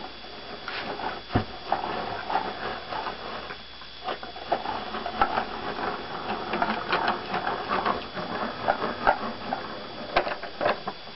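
AccuQuilt GO fabric cutter being hand-cranked, its rollers pressing a cutting die and mat through: a steady run of small, irregular clicks and rattles from the rollers and gearing as the die's blades cut the fabric.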